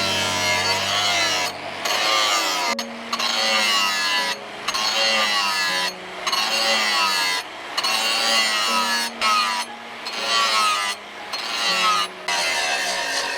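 Background music: a wavering melody over stepping bass notes, broken by short pauses about every second and a half.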